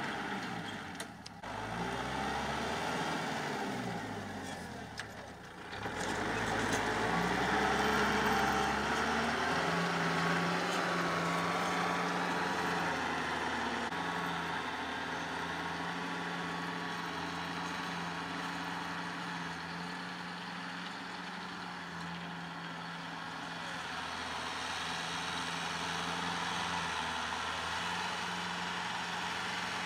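Kubota M6040 tractor's four-cylinder diesel engine running steadily while pulling a rotary tiller through the soil. Its pitch rises and falls over the first several seconds, then holds even.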